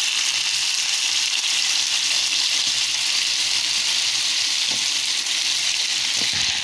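Tomato sauce sizzling loudly in a hot frying pan as it is poured over browned meatballs: a steady frying hiss.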